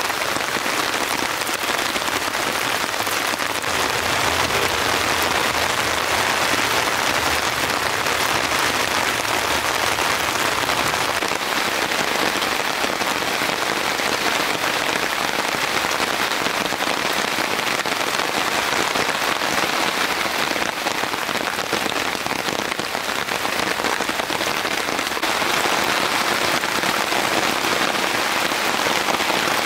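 Heavy rain falling steadily, a dense, even patter of countless drops with no let-up, with a faint low rumble underneath during the first ten seconds or so.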